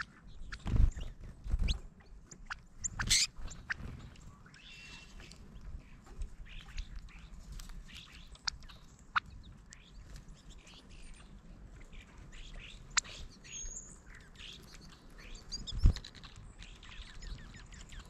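Small birds feeding at a seed-filled platform feeder: scattered short chirps and chip notes, with a few thumps in the first few seconds and another near the end as birds land and shuffle on the tray.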